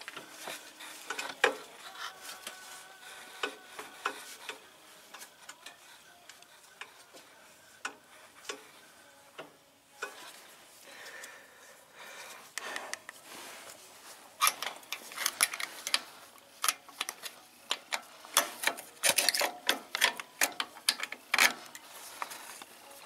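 Metal tools and parts being handled: scattered clicks, clinks and knocks with some rubbing, coming faster and louder in the second half.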